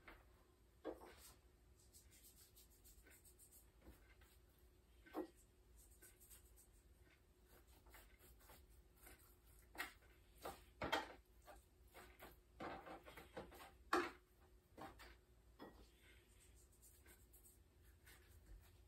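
Faint rubbing and scattered soft taps of hands working salt and black pepper into pieces of boiled pork belly on a cutting board, with a few louder knocks in the second half.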